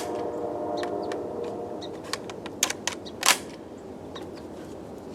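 Metallic clicks and clacks from handling the Centurion BP12 shotgun, a few separate clicks with the sharpest about three seconds in, over a steady hum.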